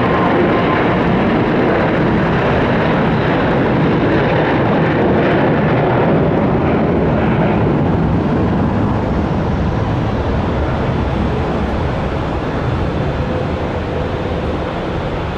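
Boeing 737-800 freighter's CFM56 jet engines roaring at take-off thrust, a loud steady rush that slowly fades over the second half as the aircraft climbs away.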